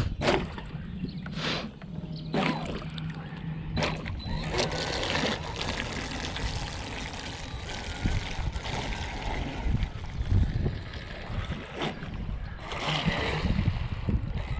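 Water splashing and trickling with gusty low rumble, several short sharp splashes in the first few seconds, and a faint steady hum that fades after about five seconds.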